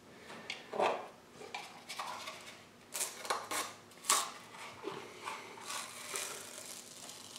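Blue painter's masking tape being peeled off a freshly painted wooden model boat hull, with scratchy ripping and rustling and a few light knocks as the hull is handled. Several short sharp clicks stand out, the loudest about three and four seconds in.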